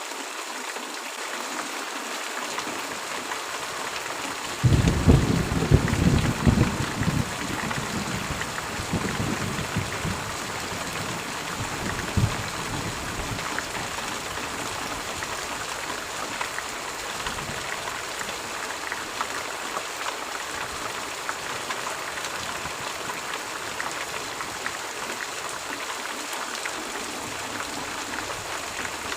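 Steady rain falling, an even hiss. About five seconds in a sudden low roll of thunder breaks in, crackling and loudest at first, and fades away over the next few seconds, with one more low knock a little later.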